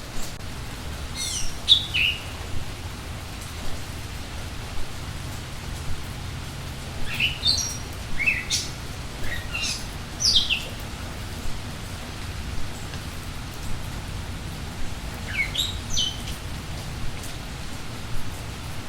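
Steady rain falling, with a songbird singing three short bursts of quick, steeply falling notes: one about a second in, a longer run in the middle, and one near the end.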